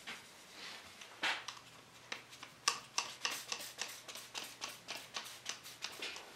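Trigger spray bottle of glass cleaner spritzed repeatedly onto a sheet of glass: a quick run of short hisses, about four a second.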